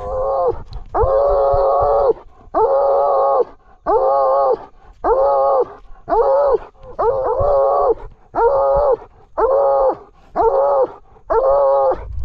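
Blood-trailing dog baying at very close range: long drawn bays one after another, about one a second. The dog is holding a wounded buck at bay.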